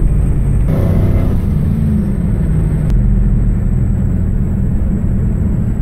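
1998 Camaro's LS1 5.7-litre V8 running at a steady cruise, heard from inside the cabin as a continuous low drone mixed with road noise. There is a brief brighter rise in the engine sound about a second in.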